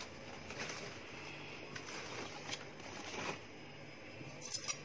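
Faint rustling and scraping with a few soft clicks, from things being handled at a kitchen counter.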